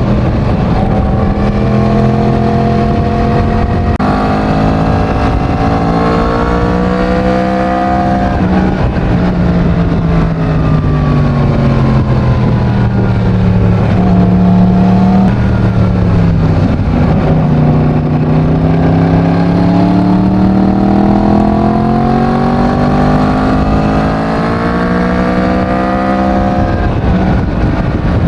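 Yamaha MT-10's crossplane inline-four running through its stock exhaust under way. It pulls up through a gear change about four seconds in, then the revs fall steadily as it slows, and it picks up speed again, with the pitch climbing until just before the end.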